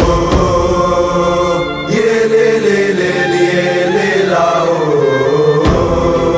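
An ultras chant song: a chorus of voices holds a long sung line over a backing beat. The low beat drops out about two seconds in and comes back near the end.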